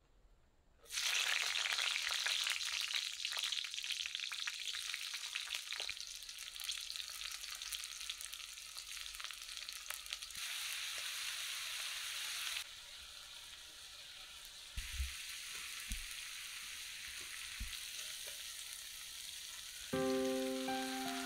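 Onions and ginger-garlic paste frying in hot mustard oil in a cast-iron wok, a loud, steady sizzle that starts suddenly about a second in and drops somewhat a little past the middle. Music comes in near the end.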